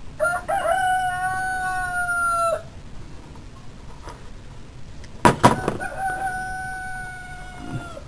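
A rooster crowing twice, each crow a long held call of about two seconds that drops off at its end. Between the crows, a few sharp clicks from pliers on a metal terminal, the loudest sounds.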